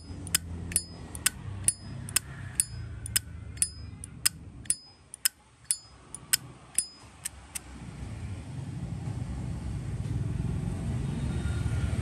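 Brushed-chrome Zippo lighter's lid flipped open and snapped shut over and over: sharp metallic clicks about two a second, many with a brief high ringing ping. The clicking stops about two-thirds of the way through, leaving a low rumble of traffic.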